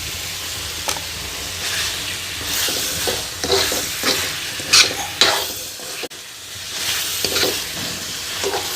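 Chicken masala sizzling in a hot kadai while a spoon stirs and scrapes the pan in irregular strokes about once a second.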